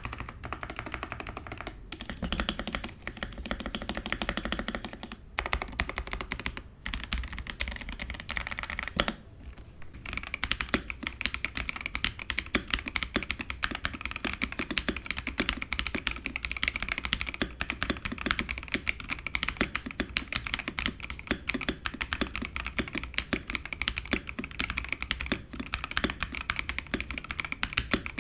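Fast typing on Xinmeng X87 gasket-mounted mechanical keyboards: a dense stream of keystroke clacks. The first board has Outemu Yellow switches; after a brief lull about ten seconds in, the typing is on Kailh Crystal Burgundy switches.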